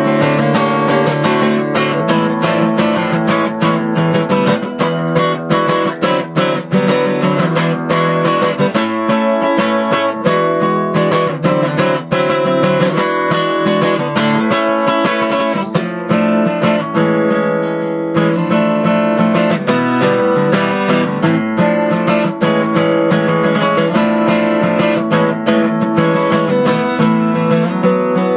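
Acoustic guitar playing an instrumental piece, picked and strummed notes running on without pause.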